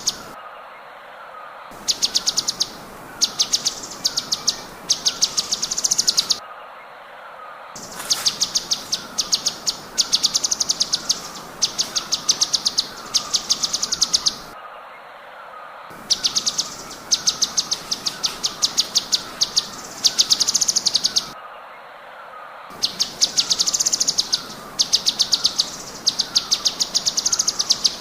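Cucak cungkok bird song in rapid-fire 'tembakan' phrases: trains of high, sharp notes at about ten a second, each lasting several seconds, with short pauses between them. A fainter call of short falling notes repeats about twice a second underneath.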